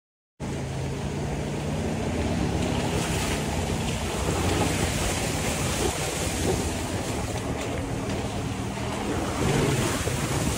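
Jeep TJ driving through a muddy trail puddle: water and mud spraying off the front tyre over the running engine, with wind rushing on the microphone. The sound starts suddenly about half a second in.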